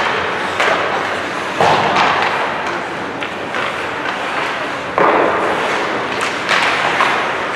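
Ice hockey play in a rink: four sharp thuds against the boards, each ringing out with echo, over a steady hiss of rink noise.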